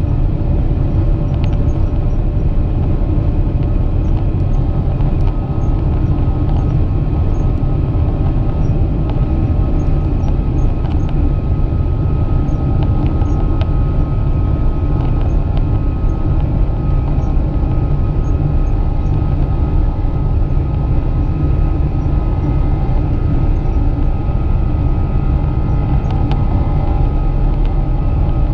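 Airliner in flight after takeoff: a steady low drone of engine and airflow noise, with a faint steady higher whine.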